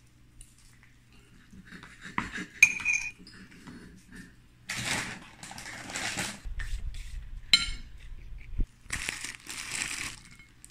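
A metal spoon clinking and scraping against a ceramic plate as food is served onto it. There are two sharp ringing clinks, one about two and a half seconds in and another past halfway, with stretches of scraping in between.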